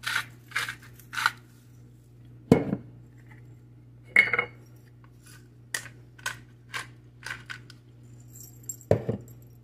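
Salt and pepper grinders and their metal caps handled on a countertop: scattered light clicks and clinks, a run of small ticks about two a second, and two duller knocks as things are set down.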